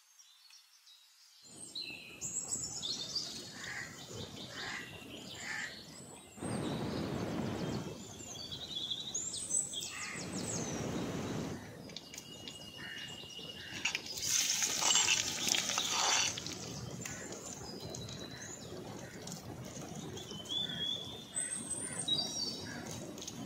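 Hot oil in a clay pot sizzling in several spells as shallots, dried red chillies and seasoning go in, loudest and most hissing about two-thirds of the way through. Birds chirp in the background, and the first second or so is near silent.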